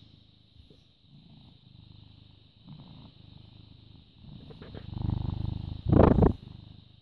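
British Shorthair cat purring close to the microphone, in low pulsing stretches about a second long. Around five to six seconds in there is a much louder, rough rustle, the loudest thing here.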